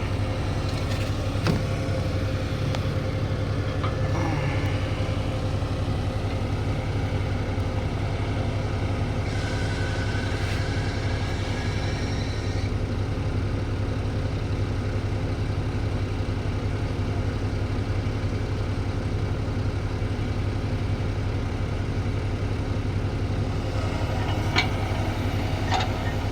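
Heavy diesel engine running at a steady, unchanging pitch, a deep drone with a faint higher whine around the middle.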